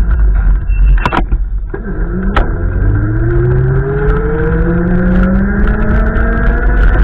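A motor vehicle's engine rising steadily in pitch as it accelerates, starting about two seconds in, over a heavy, constant low rumble of wind on the microphone. Two sharp clicks come about one and two and a half seconds in.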